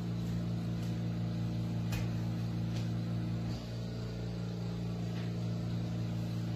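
A steady low machine hum with a few faint clicks over it.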